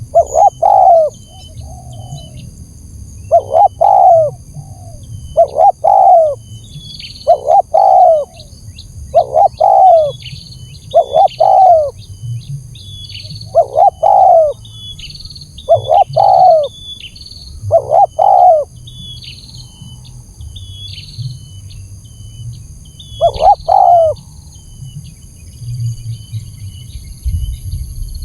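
Spotted dove cooing: short low coos repeated about every two seconds, a pause of a few seconds, then one more coo near the end. Small birds chirp faintly and high over a steady high whine.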